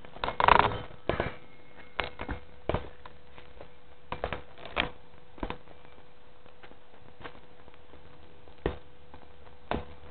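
Footsteps and handheld-camera handling noise while walking over rough woodland ground: irregular clicks and knocks, the loudest about half a second in, over a faint steady hum.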